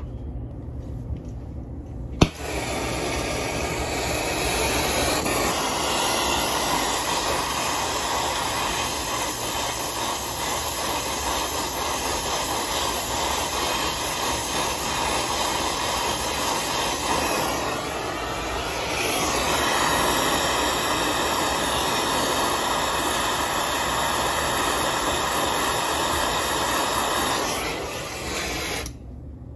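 Handheld brazing torch lit with a sharp click about two seconds in, then a steady flame roar as it heats the copper joint of a new refrigeration solenoid valve. The roar dips briefly past the middle and cuts off when the torch is shut off near the end.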